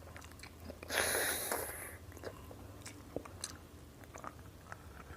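Close-up eating sounds of a person chewing mutton curry and rice: a loud suck lasting about a second, about a second in, then soft wet chewing clicks.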